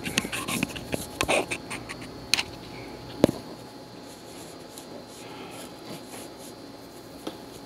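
Handling noise: a run of small clicks and scrapes over the first few seconds and one sharper tap about three seconds in, as a flashlight is worked into a metal bore; after that only a faint steady room hum.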